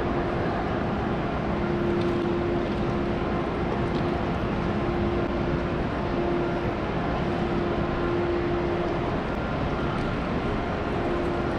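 Railway station concourse ambience: a steady wash of noise with a constant low hum that drops out briefly a few times, and no clear voices.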